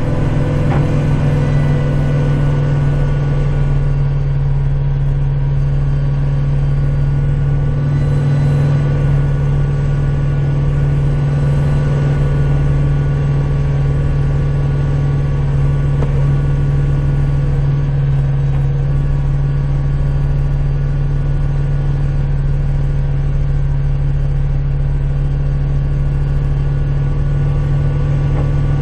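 Kubota tractor's diesel engine running steadily under snow-plowing work, a constant low drone with no change in speed.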